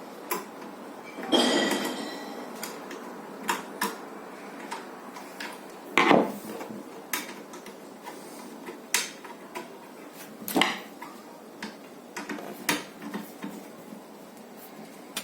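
Metal parts and hand tools clinking and tapping inside an opened microwave oven as a replacement high-voltage diode and its ground lead are fitted: scattered light clicks with louder knocks about a second in, around six seconds in and near eleven seconds, the first with a short metallic ring.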